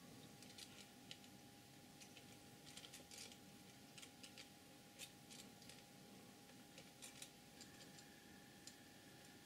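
Near silence: room tone with a faint steady hum and scattered faint, short clicks.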